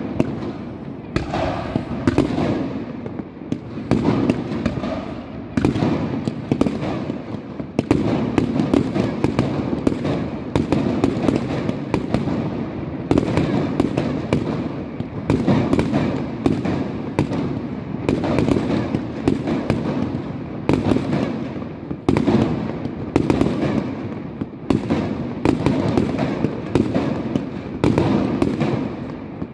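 Fireworks display with aerial shells bursting and ground fountains firing in a dense, continuous barrage of bangs and crackling.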